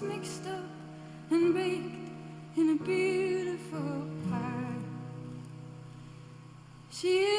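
A woman singing in musical-theatre style: short phrases of held notes with vibrato over soft sustained instrumental accompaniment, with a new phrase starting near the end.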